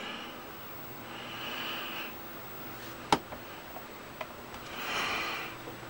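A man breathing out heavily twice, each breath about a second long, with a single sharp click about three seconds in. A steady low hum runs underneath.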